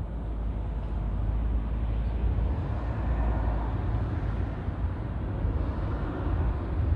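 Strong wind buffeting the microphone as a fluctuating low rumble, over the steady noise of distant city traffic.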